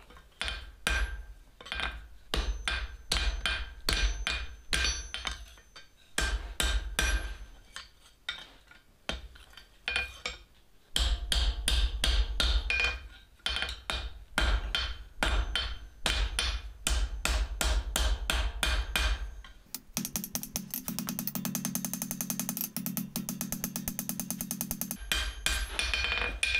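Hand hammer striking a hot half-inch round steel bar on an anvil, about three blows a second in runs with short pauses, with the anvil ringing, as the end is flattened into the bowl of a small flux spoon. Near the end comes about five seconds of a fast, steady rattle.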